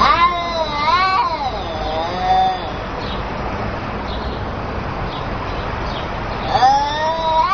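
Domestic cats yowling at each other in an aggressive standoff. A long wavering yowl rises and falls over the first two and a half seconds, and another begins near the end.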